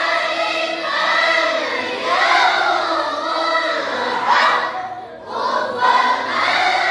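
A large group of santri chanting Quran recitation together in unison, in the nahawand maqam, with long melodic phrases. The voices drop out briefly for a breath about five seconds in, then resume.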